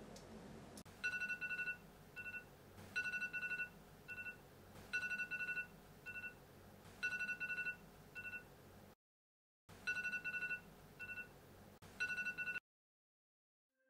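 Smartphone alarm tone ringing: a longer electronic beep followed by a short one, repeating about every two seconds. It breaks off briefly about two thirds of the way through and stops suddenly a second or so before the end.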